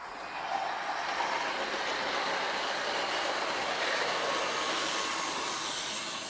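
OO gauge model train running past close by: the Class 47 locomotive's electric motor and the wheels of the DVT and Mk3 coaches rolling over the model track make a steady whirring, rattling noise. It swells about half a second in and eases a little near the end as the train goes by.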